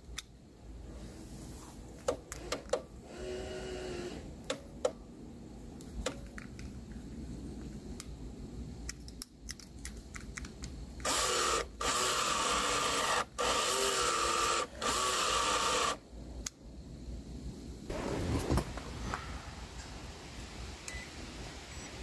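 Small clicks of a power mirror switch and its wiring being handled, then about halfway through a loud whirring in four bursts over about five seconds: the 1986 Dodge Daytona's power mirror motor running as the switch under test is pressed.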